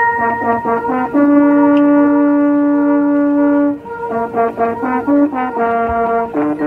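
Marching band brass playing: a short figure, then a long held note of a little over two seconds, then a run of short separate notes.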